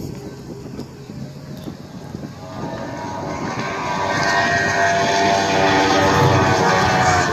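High-speed powerboat engine running hard, with a high engine whine that grows steadily louder from about two and a half seconds in as the boat approaches at speed.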